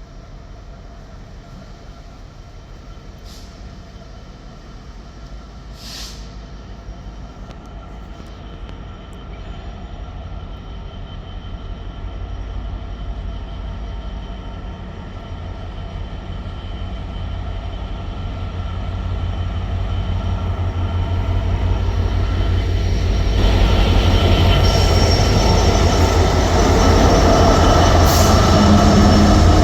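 A train approaching along the line: a low rumble with a steady whine grows steadily louder over about half a minute and swells sharply near the end. A few short, high wheel squeaks come through along the way.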